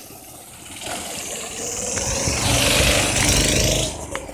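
Go-kart's small engine running on a paved road, getting louder over the first few seconds and dropping away shortly before the end.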